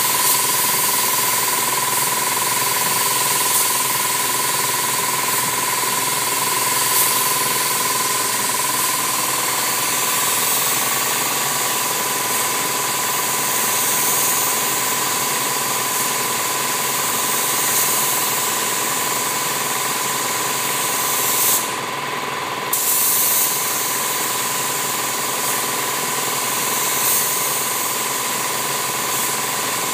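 Compressed-air hiss of a gravity-feed paint spray gun spraying paint, with a steady whistling tone. The hiss drops away briefly about two-thirds of the way through, then resumes.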